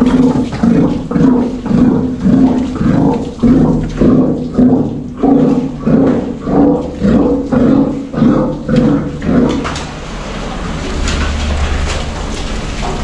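Steller sea lion giving a deep, rhythmic roar, a pulse about twice a second, which stops about ten seconds in.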